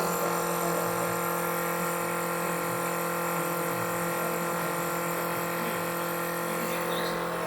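Crown CT 36036 12 V mini air compressor running steadily, a constant motor hum with no change in pitch.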